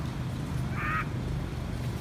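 Baby long-tailed macaque giving one short, high-pitched crying call about a second in.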